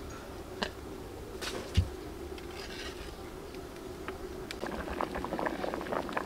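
Long metal ladle stirring a large metal pot of boiling vegetable dessert: scattered knocks and clinks of the ladle against the pot, getting busier over the last couple of seconds, over a steady low rumble of the boil.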